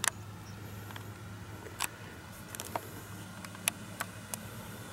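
Faint steady hum of a FlightLine P-38L Lightning RC model's twin electric motors in flight at a distance, broken by about five sharp clicks scattered through.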